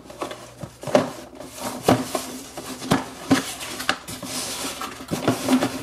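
Cardboard box being handled and opened by hand: rustling and scraping of the card flaps with several sharp taps and knocks.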